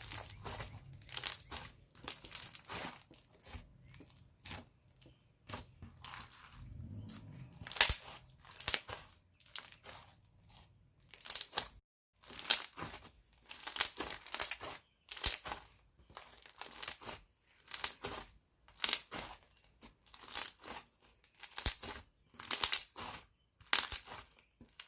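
White glue foam slime squished and worked by hand, giving repeated crackling, crunchy pops about once a second.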